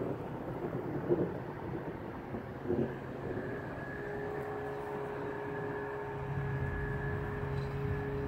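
A low rumbling background, then from about three seconds in a steady engine drone with several held tones.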